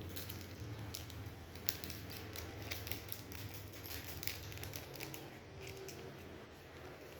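Scattered light clicks and taps of small parts being handled, the sharpest about a second and a half in, over a steady low hum.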